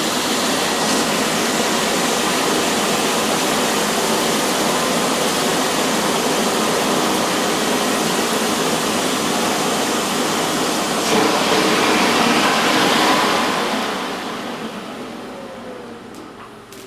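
Canister vacuum cleaner running steadily, then switched off about 13 seconds in and winding down, its motor pitch falling as it slows.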